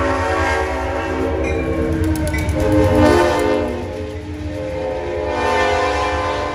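Train's air horn sounding a chord in several long blasts, over a low rumble.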